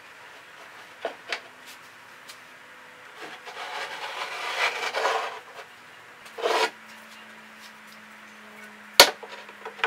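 Iron pipe legs and fittings being handled and turned against the wooden shelf boards: rubbing and scraping, a couple of light knocks, and one sharp metallic click near the end.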